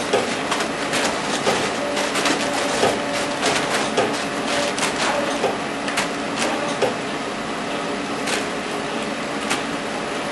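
Robotic packing machinery for bagging pork scratchings running steadily, with a constant hum and frequent irregular sharp clicks and rattles.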